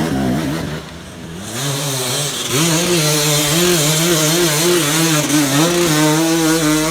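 Two-stroke enduro dirt bike engine. The revs dip, climb about two seconds in, then hold high with the pitch wavering up and down as the throttle is worked.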